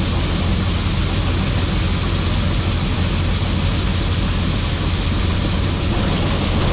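Combine harvester running steadily, a loud even engine hum with the rush of its working machinery.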